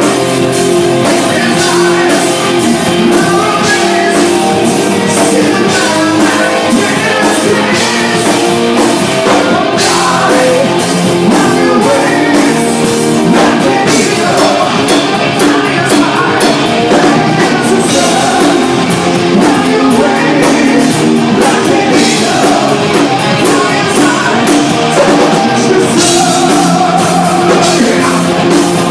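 Live rock band playing loudly on stage: drum kit, distorted electric guitar and a lead singer, heard close-up from the stage, without a break.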